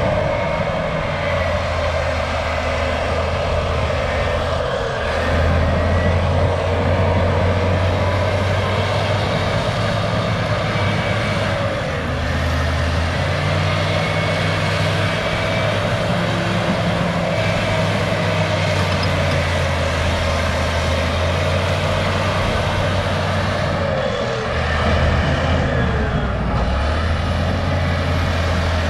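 Cat D6H bulldozer's six-cylinder diesel engine running under working load, its engine note rising and falling several times as the load changes, with continuous mechanical clatter over it.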